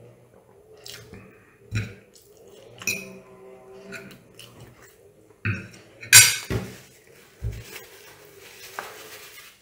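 Metal fork knocking and scraping against a ceramic plate, eight or so separate clinks. The loudest comes about six seconds in, as the fork is set down on the plate.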